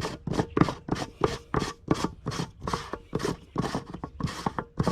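Dog panting fast and close, an even run of short breaths at about four a second.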